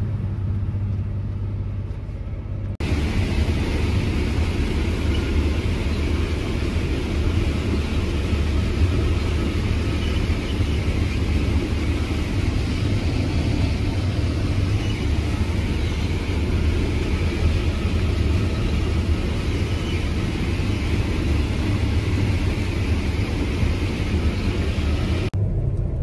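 Heavy farm machinery engine running steadily, first as a low drone, then, after an abrupt cut about three seconds in, as a louder, fuller machine noise that holds steady until it cuts off just before the end.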